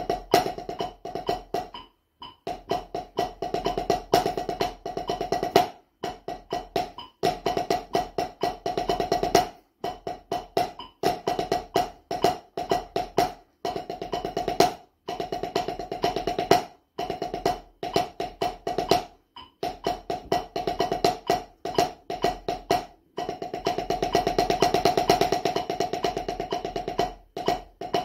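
Snare drum solo played with wooden drumsticks on a practice pad: phrases of fast strokes and rolls separated by short rests, with a longer unbroken roll near the end.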